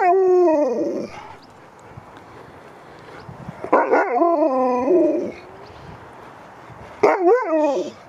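Husky howling in three long calls that bend up and down in pitch: one at the start, another about four seconds in, and a shorter one near the end.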